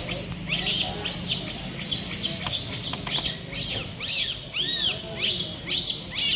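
Infant rhesus macaque crying after its mother hit it: a rapid run of high, arched squealing cries, with longer arched cries near the end.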